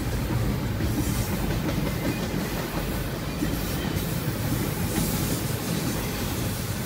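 Double-stack intermodal well cars of a freight train rolling past, with the steady noise of their steel wheels running on the rails.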